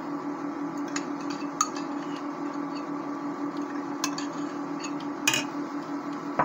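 A metal spoon clinking and scraping against a bowl and a stainless steel frying pan while thick sour-cream sauce is spooned out over the meat, a few separate clinks with the sharpest about five seconds in. Under it runs the steady hum of an induction cooktop.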